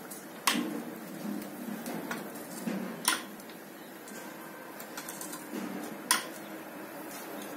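Sharp metal clicks and clinks of a hand wrench working on engine bolts during an engine teardown: three louder strikes, roughly three seconds apart, with lighter ticks between.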